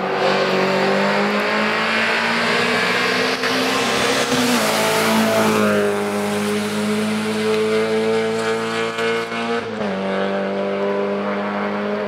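A rally car's engine revving hard through a hairpin, with tyre noise as it goes into the bend. The engine pitch drops about four seconds in, then climbs again as the car accelerates away, with a short dip near ten seconds.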